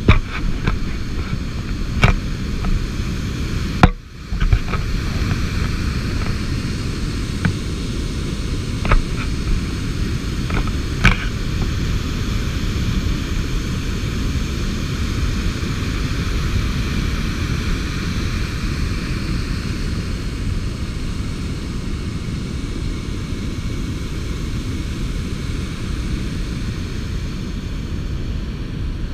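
Steady rushing of wind and water spray on a camera riding a moving boat, with a few sharp knocks in the first eleven seconds.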